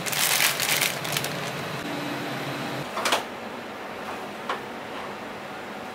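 Clear plastic vacuum bags crinkling as they are handled, then a couple of short knocks from a stainless reach-in kitchen refrigerator being opened.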